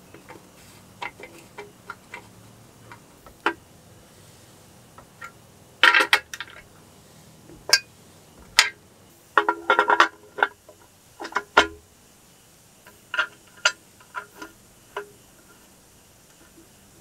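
Metal tools and bicycle parts clicking and clinking as they are handled while a bottom bracket and crankset are fitted to a bike frame. The clinks are scattered and irregular, some ringing briefly, with the loudest clusters about six and ten seconds in.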